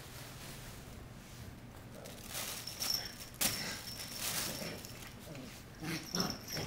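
Shiba Inu puppies scuffling on a hardwood floor and bumping a fabric cat tunnel: scattered light knocks and scrapes, the sharpest about halfway through and a short cluster near the end.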